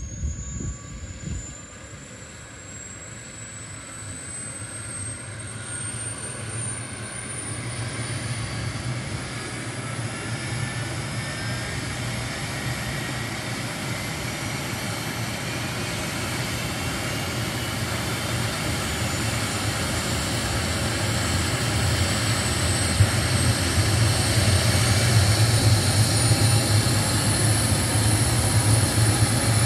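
Small turbine helicopter, an MD 500-series, running up on the ground: a high turbine whine rises steadily in pitch while the rotor beat grows louder throughout, building toward take-off power.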